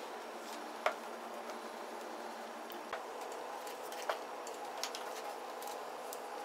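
A few sharp, scattered clicks and taps as a plastic model airplane fuselage is picked up and handled, over a steady faint hum.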